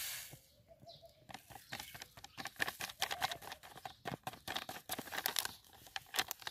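Succinic acid crystals shaken from a crinkly sachet into a glass jar of water: a rapid, irregular crackle of the packet and falling grains, starting about half a second in and stopping shortly before the end.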